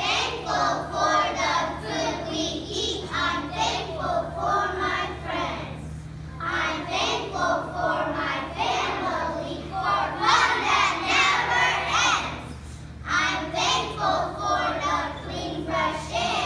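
A group of young children singing together, in phrases of a few seconds with short breaks between them.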